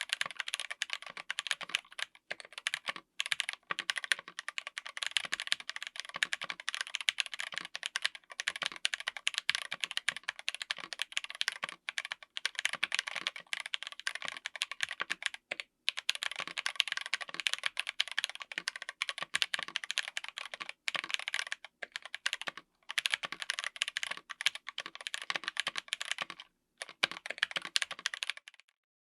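Fast typing on a full mechanical keyboard with stock, factory-lubed Akko x TTC Demon linear switches on an FR4 plate: a dense run of keystroke clacks, broken by a few brief pauses.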